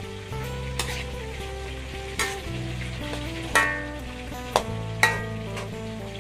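Metal spoon stirring vegetables simmering in soup in a metal wok: a steady sizzle with several sharp clinks of the spoon against the pan. Soft background music with steady low notes plays underneath.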